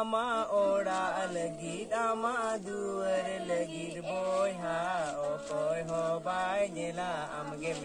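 Young voices singing a song unaccompanied, with long held notes that waver in pitch and no instruments.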